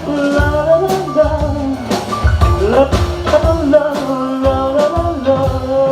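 Live rock band playing a song: drum kit keeping a steady beat under bass, guitar and held notes.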